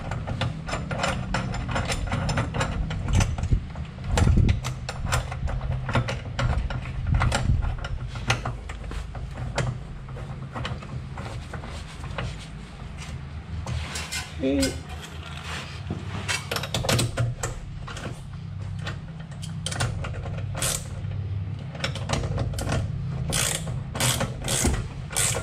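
Hand ratchet wrench clicking in quick runs, stroke after stroke, as it turns nuts on a threaded rod to press a rubber subframe bushing into its seat.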